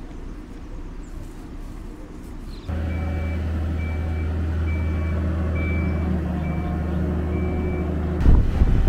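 Boat travel lift's engine running steadily, starting suddenly a little under three seconds in, with its warning alarm giving short high beeps about once a second. Loud wind rumble on the microphone near the end.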